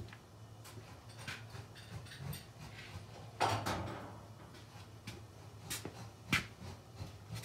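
Scattered metal clicks and knocks of hand tools and brake parts being handled, with a louder clank about three and a half seconds in and a sharp knock near six and a half seconds.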